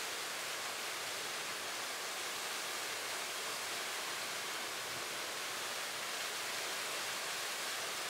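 Waterfall: a steady, even rush of falling water, with no low rumble.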